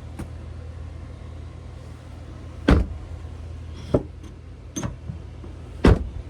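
Chevy Sonic door being shut to check that it closes after patch-panel work: two heavy thuds about three seconds apart, with lighter latch clicks and knocks between them, over a steady low hum.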